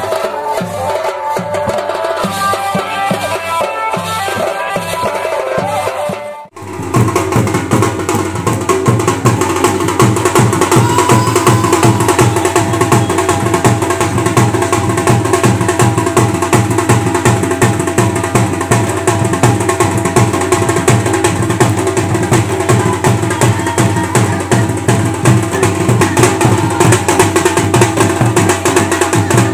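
Pahadi dhol and damau drumming with a tune playing over it. A sudden cut about six seconds in brings in louder, dense, fast drumming that keeps on without a break.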